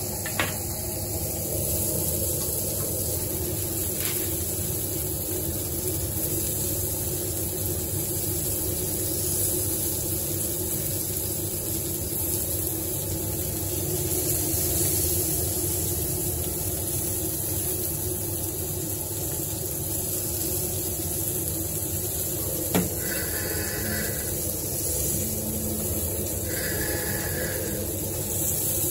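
Köfte meatballs and sucuk sausages sizzling on a charcoal grill: a steady hiss over a low kitchen hum, with a sharp click just at the start and another about three-quarters of the way through. Near the end a phone starts ringing in short repeated tones.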